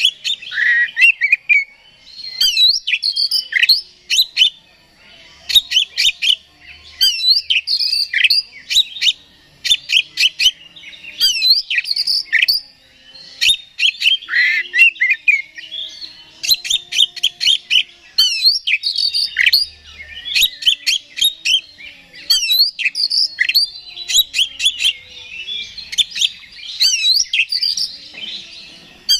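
Male oriental magpie-robin (kacer) in full song: loud, varied phrases of rapid chirps, sweeping whistles and trills, each lasting a second or two, with short pauses between them.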